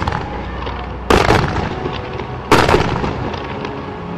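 Aerial firework shells bursting: three sharp booms about a second and a half apart, each followed by a spray of crackling.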